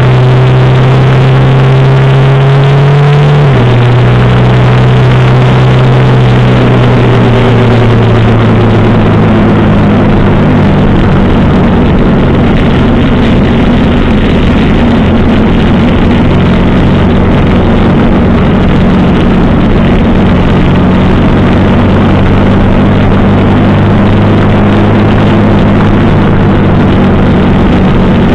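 Suzuki GS 700 ES motorcycle engine running steadily at riding speed, heard from the rider's seat with loud wind and road noise over it. The engine note drops about three and a half seconds in, then holds steady.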